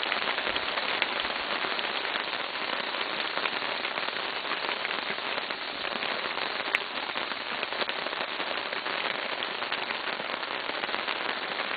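Steady rain pattering, a dense hiss full of fine crackling drop ticks, with one sharp click about seven seconds in.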